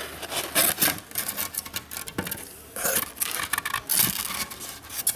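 Cardboard shipping box being opened and handled: irregular scraping, rubbing and rustling of cardboard and packing material, with a few sharp clicks.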